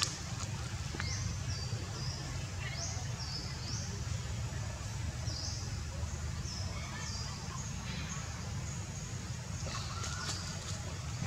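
A bird repeating a short, high chirp that rises and then holds, every second or two, over a steady low rumble of outdoor background noise.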